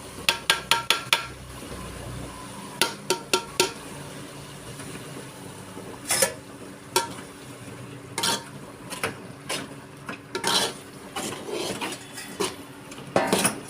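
A spoon stirring masala in a cooking pot, clinking and scraping against the pot: a quick run of sharp taps near the start, another about three seconds in, then scattered knocks and scrapes.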